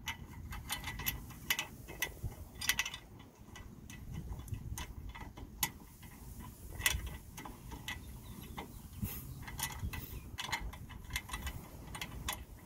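Light metallic clicks and ticks at irregular intervals as a nylon lock nut and flat washer are fiddled onto a square-head bolt by hand, the nut reluctant to catch its thread.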